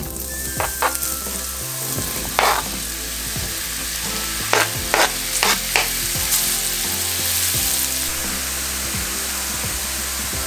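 Sliced button mushrooms sizzling in a hot non-stick frying pan as they are tipped in and stirred with a spatula. A handful of short scrapes of the spatula come in the first six seconds, then the sizzling goes on steadily.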